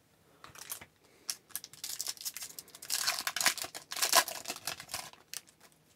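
Plastic wrapper of an Upper Deck hockey card pack crinkling and tearing as it is opened. The sharp crackles come thickest in the middle few seconds.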